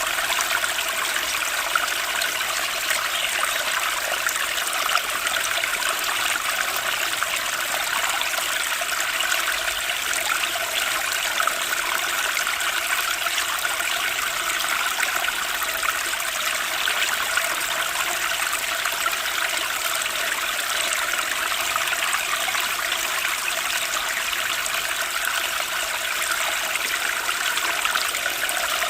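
Flowing stream water, a steady rushing trickle.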